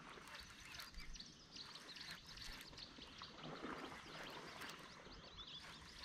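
Faint birdsong: many short, high chirps and twitters scattered through a low outdoor background hiss.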